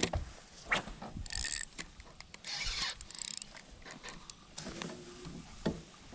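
Fishing reel being cranked in short spells, a whirring, ratcheting mechanical sound.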